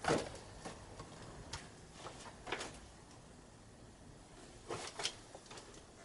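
A few faint, scattered knocks and taps of stiff plastic sticker sheets being handled and pressed flat onto the giant cube's panels.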